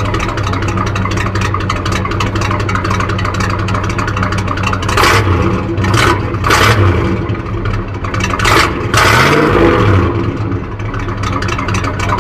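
GMC pickup's exhaust, idling steadily, then blipped five times, with short sharp revs that drop back to idle. The longest rev comes about nine seconds in.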